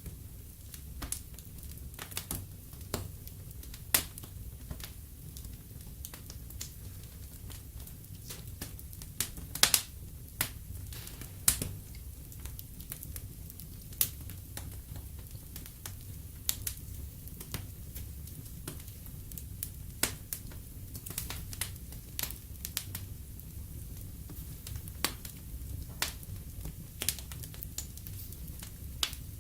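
Fireplace fire crackling: irregular sharp pops and snaps over a low steady rumble, with a few louder pops around ten and twelve seconds in.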